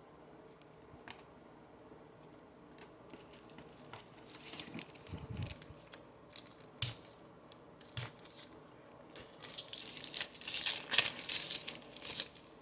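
Crinkly foil wrapper of a 2021 Panini Prizm baseball card pack being torn open and crumpled by hand, in irregular bursts that are loudest about ten seconds in.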